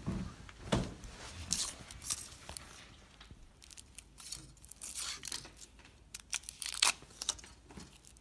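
Foil wrapper of a large chocolate egg being torn and crinkled in irregular crackling rustles, with a dull knock about a second in.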